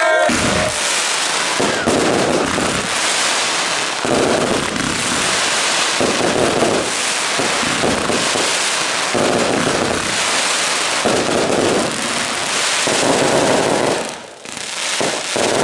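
Fireworks display: a dense, unbroken crackling from a sky full of crackling stars, with heavier shell bursts swelling through it about every two seconds. It thins out briefly near the end, then surges again.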